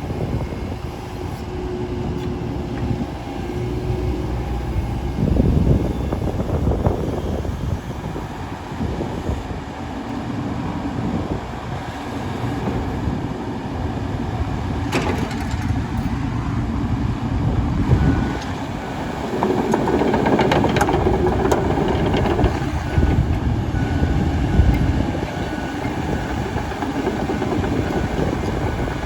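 John Deere 135G excavator running and being worked, its diesel engine rumbling and rising and falling in level, with metal knocks and a thin steady whine joining about two-thirds of the way through.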